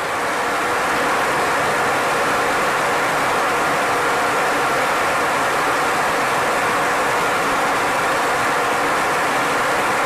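Steady drone of jet aircraft in flight, a constant rushing noise with faint steady engine tones in it.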